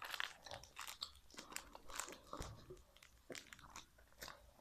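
Someone chewing and crunching sour candy close to the microphone: a string of faint, irregular crunches.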